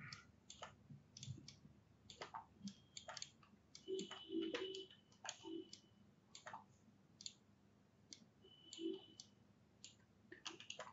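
Faint, irregular clicking of a computer mouse and keyboard keys, several clicks spread through with short pauses between them.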